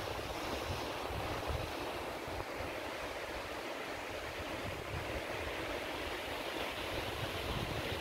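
Ocean surf breaking along a sandy beach and rocky shore, a steady wash of waves, with wind buffeting the microphone in low, uneven rumbles.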